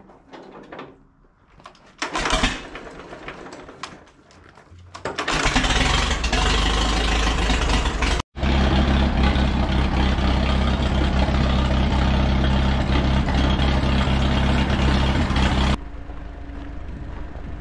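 1937 Farmall F20's four-cylinder engine being hand-cranked, catching about five seconds in and then running loud and steady, after a clogged fuel sediment bulb was cleared. Near the end it is heard farther off and quieter as the tractor drives away.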